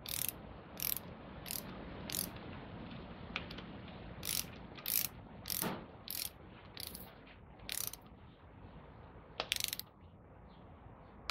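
Torque wrench clicking as the connecting-rod cap nuts are tightened to 33 ft-lb: about a dozen sharp single clicks at uneven intervals.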